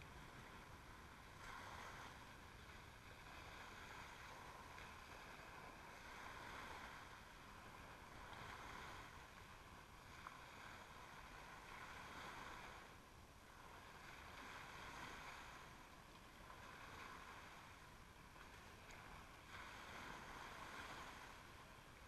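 Faint small waves washing up on a sandy shore, a soft hiss of surf that swells and fades every few seconds.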